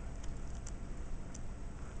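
A few small, sharp clicks and taps from netbook parts being handled during a drive install, over a steady low hum.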